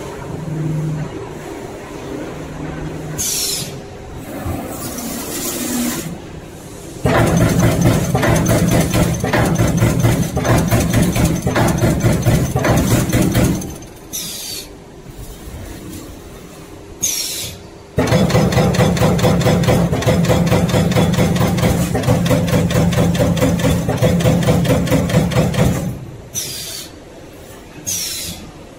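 Primapress 32-station hydraulic CNC turret punch press punching sheet metal in long runs of fast, evenly repeated strokes, one starting about seven seconds in and another from about eighteen seconds. Between the runs the machine runs more quietly, with brief falling whooshes.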